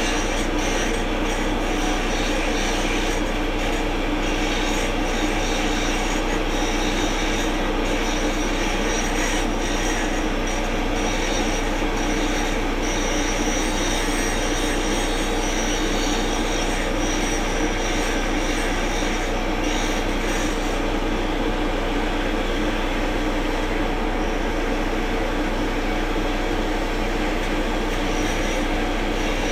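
Large diesel engine running steadily, typical of an excavator at work.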